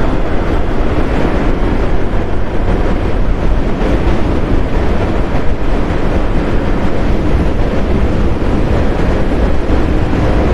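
A road vehicle on the move: steady engine and road noise with heavy wind rumble on the microphone.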